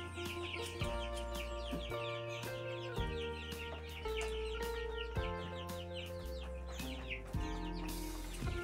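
Young chicks peeping continuously, a dense stream of short falling peeps, several a second, over background music with held notes and a steady bass line.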